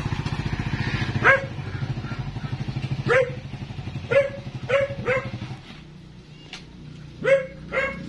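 Motorcycle engine idling with a steady low putter that stops about six seconds in, as the motorcycle with its loaded cart is brought to a halt. A dog barks sharply about seven times over it, the loudest sounds.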